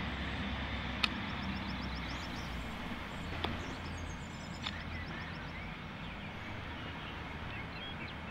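Outdoor park ambience: a steady low rumble and hiss with a few faint short bird chirps and a rapid run of faint high ticks. Three sharp clicks cut through, the loudest about a second in.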